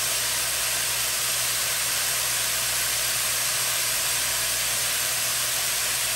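Broccoli, Brussels sprouts and onions sizzling and steaming in a hot skillet: a steady hiss.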